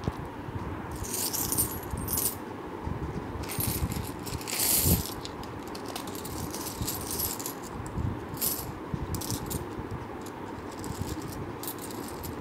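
A heap of Indian 5-rupee coins clinking and jingling against each other as hands stir and sort through them on a cloth, in repeated bursts of clinks, the loudest about halfway in.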